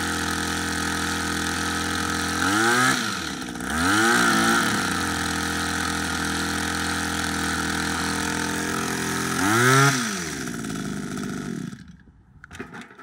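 Freshly overhauled Sears Craftsman 20.3cc two-stroke hedge trimmer engine idling steadily. It is revved up and back down three times, then shut off near the end.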